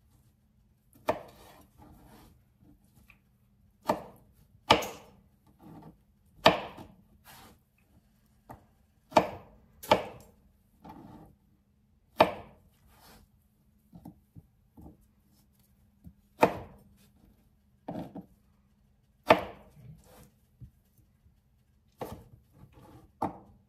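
A kitchen knife chopping Roma tomatoes on a cutting board: a run of sharp, irregular knocks, mostly a second or so apart, as the blade goes through each tomato and hits the board.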